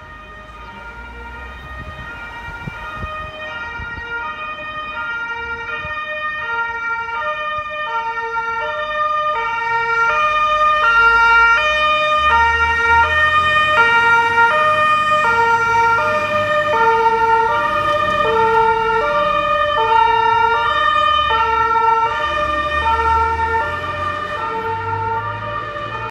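German fire engine's two-tone siren (Martinshorn) switching back and forth between its two notes, growing louder as the truck approaches, loudest about halfway through and fading near the end. Low engine rumble as the truck passes.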